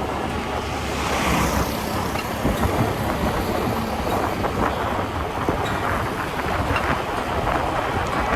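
Wind rushing and buffeting over the microphone, with a vehicle running along the road underneath, as the camera travels.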